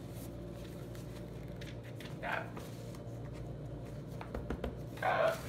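Paper and a book being handled on a cloth-covered table: soft rustles and a few light clicks and taps over a steady low room hum.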